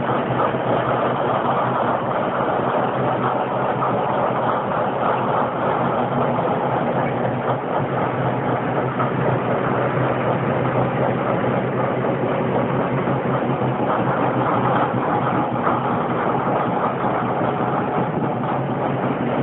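RENFE 10825 diesel locomotive's engine running steadily, a constant low hum with heavy mechanical noise and no change in speed.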